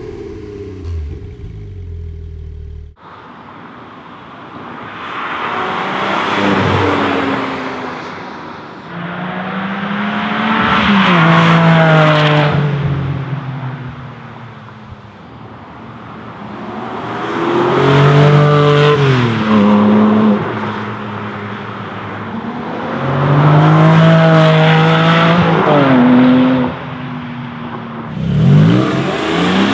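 Porsche 718 Cayman GT4's 4.0-litre flat-six driving past under hard acceleration, about five passes in a row. Each pass swells up and fades as the engine note climbs with the revs. It opens with the end of a stationary engine run before a sudden cut to the first pass.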